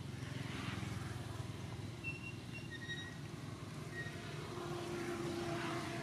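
Steady low engine drone of motor traffic, with a few short high chirps about two to four seconds in.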